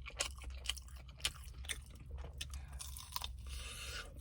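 A person chewing crispy Korean fried chicken, with irregular crunches and a sharper crunch a little over a second in.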